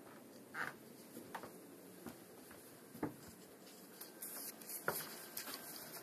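Faint, scattered clicks and rustles of someone moving about a small, quiet room, with sharper knocks about half a second, three seconds and five seconds in, and more rustling near the end.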